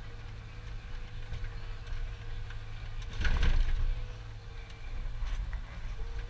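Forestry forwarder's engine running steadily, heard from inside the cab as a low hum with a faint steady whine. Just after three seconds in, a brief louder rush of noise from the crane and load area lasts about half a second.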